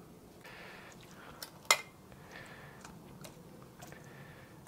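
Tuna scraped out of an opened tin can into a cast-iron pan with a metal utensil: soft scraping and light metal clicks, with one sharp metallic clink a little under two seconds in.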